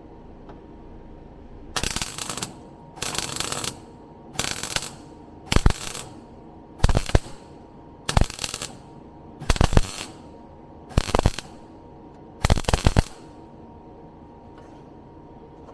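MIG welder laying short stitch welds on a car's steel floor pan. There are nine crackling bursts of about half a second each, roughly one every 1.3 seconds, with a steady hum between them.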